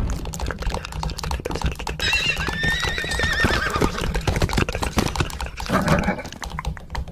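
A horse whinnying: one wavering, quavering call about two seconds in that falls in pitch as it ends, over a fast, irregular clatter of clicks.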